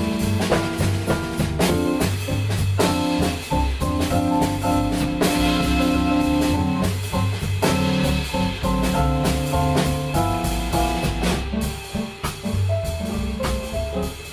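Live jazz trio playing: digital stage piano leading over a Tama drum kit and double bass.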